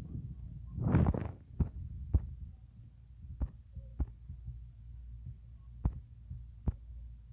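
Short sharp thumps, several in pairs about half a second apart, over a low steady hum, with a brief louder rush about a second in.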